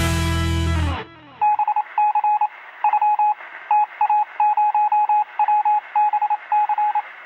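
A rock music track ends on a ringing final chord about a second in. Then a single-pitched electronic beep sounds in quick short and long pulses, like Morse code.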